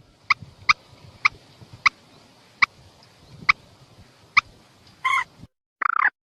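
Calls of a mandar, a moorhen-type rail, played as a bird lure: a run of about seven short, sharp single notes spaced half a second to nearly a second apart and slowing, then two longer, harsher calls near the end.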